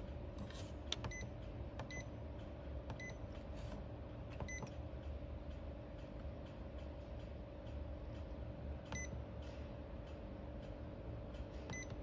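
Liebherr fridge control panel beeping as its square buttons are pressed: about seven short, high single-pitched beeps, each with a faint click, spaced irregularly, most in the first five seconds and two later on. A steady hum runs underneath.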